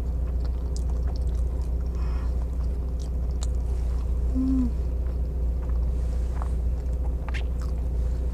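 Close-mic chewing of a burger, with soft mouth clicks, over a steady low hum inside a car. About halfway there is one short, low hum from the throat.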